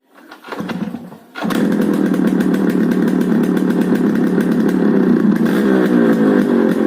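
Yamaha RX 135's single-cylinder two-stroke engine, breathing through an RX 100 six-hole silencer, sputters briefly and catches about a second and a half in, then runs steadily with a rapid exhaust putter.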